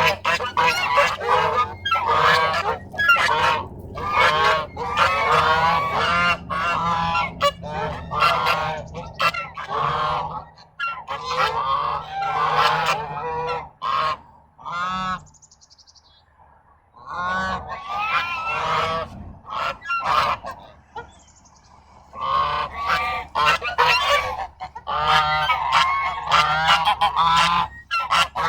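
A flock of geese honking, many calls overlapping, with two brief lulls past the middle.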